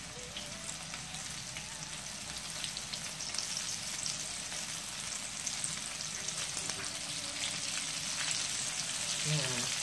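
Flour-coated chicken pieces deep-frying in hot oil in a wok: a dense crackling sizzle that grows gradually louder.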